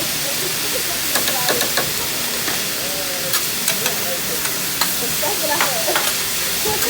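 Food sizzling on a hibachi griddle, a steady hiss with scattered sharp clicks and taps of metal utensils. Indistinct voices murmur underneath.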